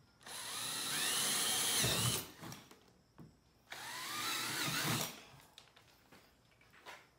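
Handheld electric drill with a 3/8-inch bit boring holes through 3-inch PVC pipe, in two runs of about two seconds and one and a half seconds. The motor's whine sweeps upward as the bit works through the plastic.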